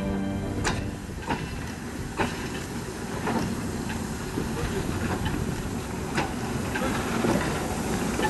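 Steam locomotive moving slowly: a steady hiss of steam with sharp metallic knocks and clanks about once a second.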